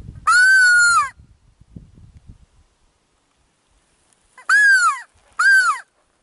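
Three loud caws from a corvid: one long, drawn-out call just after the start, then two shorter caws close together about four and a half seconds in.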